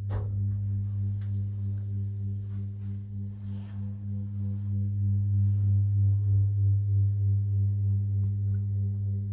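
Lift car humming as it climbs: a steady low hum with even overtones, wavering slightly in level. A few faint clicks come in the first few seconds.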